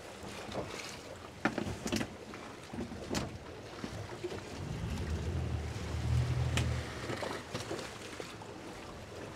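Wind buffeting the microphone and choppy water slapping against a boat's hull as it sits rocking in open water, with a few sharp knocks and splashes and a low rumble for about two seconds in the middle.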